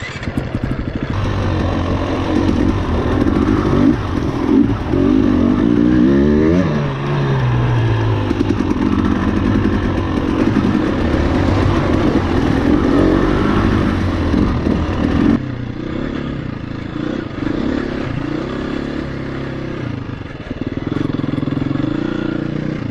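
KTM 350 EXC-F single-cylinder four-stroke dirt bike engine running under way, its revs rising and falling with the throttle, with a clear drop in revs about seven seconds in.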